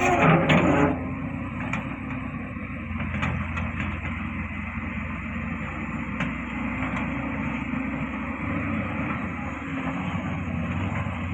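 Heavy diesel machinery of a mining excavator and haul trucks running steadily, with a brief loud noisy burst about a second long at the start.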